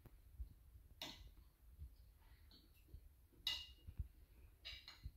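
Faint, scattered clinks and scrapes of forks and knives on ceramic dinner plates: one about a second in, one about three and a half seconds in, and a few more near the end.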